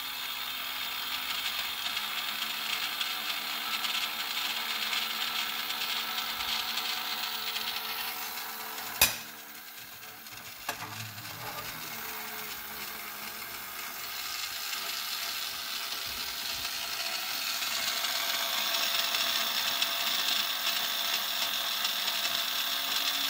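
Small electric motor and gear train of a battery-powered toy rotisserie spit, running on two C cells and turning steadily. A single sharp click comes about nine seconds in, and the running is quieter for a few seconds after it.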